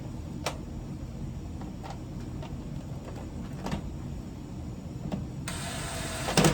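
Light clicks from handling dryer parts and screws over a low steady background, then about a second of harsh rasping noise near the end that finishes in a loud thump.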